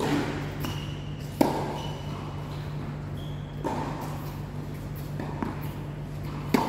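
Tennis rally: a ball struck by rackets several times, sharp pings one to two seconds apart, the loudest about a second and a half in. A steady low hum runs under the hits.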